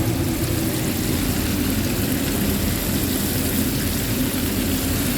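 Chicken deep-frying in hot oil: a steady, even sizzle with a low rumble underneath.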